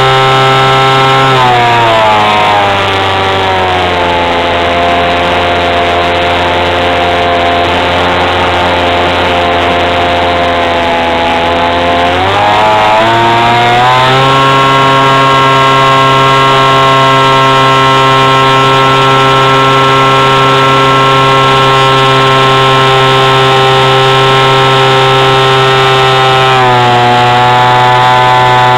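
Motor and propeller of a radio-controlled model aircraft, heard close up from a camera on board: a loud, steady buzzing drone. Its pitch drops about a second in as the throttle is eased, holds lower, then climbs back about twelve seconds in and stays steady.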